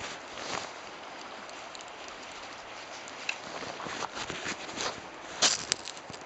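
Footsteps crunching on a riverbank of rounded stones and gravel: a few scattered crunches and clicks, coming more often from about four seconds in, with the loudest pair near the end, over a steady background hiss.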